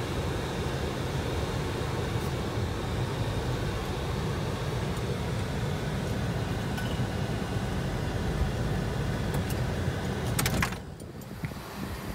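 A car running, heard from inside the cabin: a steady low rumble with fan hiss. About eleven seconds in, a few clicks, and the running stops suddenly, leaving it much quieter.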